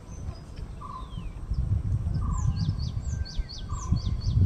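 Birds calling: repeated high-pitched chirps that sweep quickly downward, and a lower short call coming back every second or so, over a strong low rumble that gets louder from about a second and a half in.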